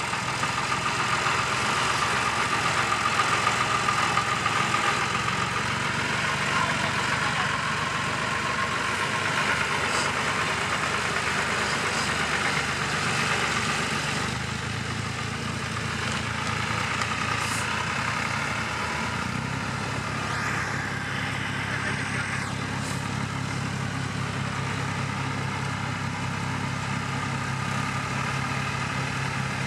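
Two tractor diesel engines, a John Deere 1520 loader tractor and a Massey Ferguson 147 pulling a tine cultivator, running steadily while working. About 19 s in the engine note becomes deeper and stronger as the Massey Ferguson comes nearer.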